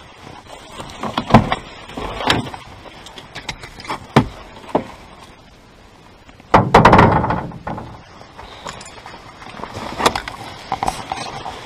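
A pickup truck's door and the gear in its cab being handled: several separate sharp knocks and thumps, then a louder rustling clatter lasting about a second just past halfway, and a few lighter clicks near the end.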